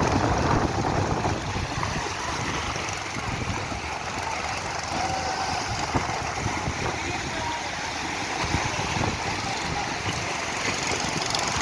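A boat under way at sea: its engine running steadily with water rushing and wind noise, a dense, even rumble and hiss.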